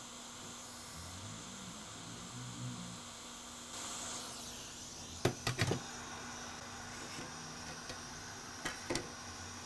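Hot-air rework station blowing with a steady hiss while a MOSFET is desoldered and lifted off a graphics card board with tweezers. There are a few sharp clicks, a pair about halfway through and another pair near the end.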